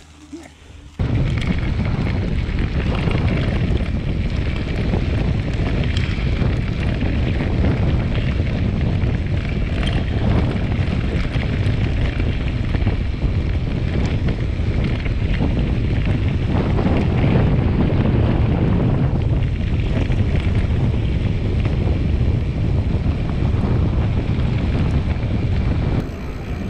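Heavy wind buffeting on the microphone, a loud, steady rushing noise heaviest at the low end. It starts abruptly about a second in and drops just before the end.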